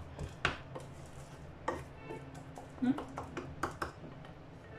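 Wooden spatula stirring scrambled eggs in a ceramic saucepan, scraping and knocking against the pan: a handful of sharp knocks, irregularly spaced, over a steady low background hum.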